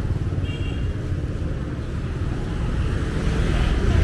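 Steady low rumble of street traffic, likely motorbikes, with a brief high beep about half a second in.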